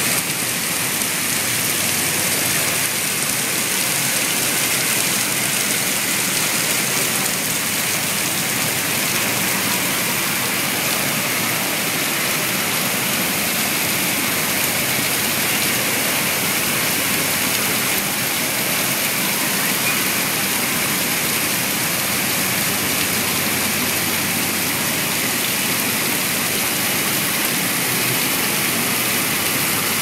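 Water cascading down an artificial rock wall and splashing into a pond: a steady, even rush.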